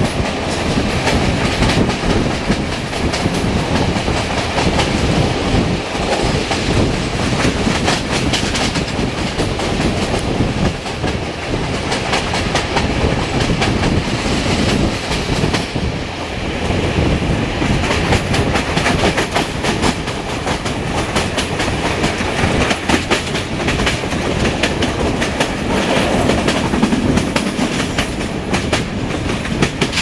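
Passenger train's wheels running over the rails at speed: a steady rumble with the clickety-clack of wheel sets striking rail joints, heard from an open carriage window.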